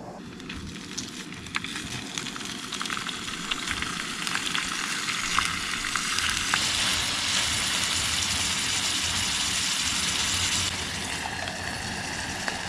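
Ground sausage meat frying in hot oil in a small pan on a gas canister stove. The sizzle grows louder after the meat goes in, with clicks and scrapes of tongs breaking it up. Near the end the sizzle drops to a quieter level as a lid goes on the pan.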